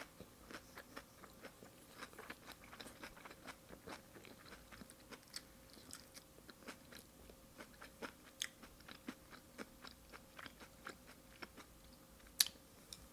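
Close-up chewing of salmon sashimi: faint, irregular wet mouth clicks and smacks, with one sharper click near the end.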